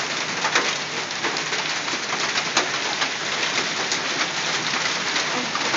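Hail pelting down: a dense, steady clatter of hailstones striking surfaces, with many sharper individual hits scattered through it.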